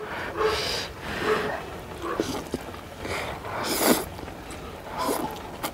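Blowing on a chopstick-load of hot ramen noodles, then slurping them in, with the loudest slurp about two-thirds of the way through.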